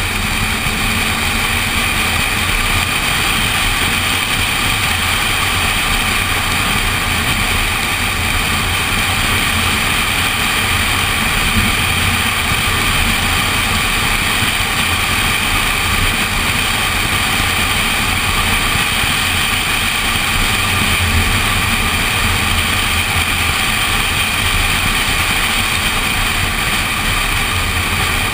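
Ford Puma 1.7-litre car driving at a steady pace on a wet road, picked up by a camera mounted on the outside of the car: an even engine note mixed with tyre and wind noise.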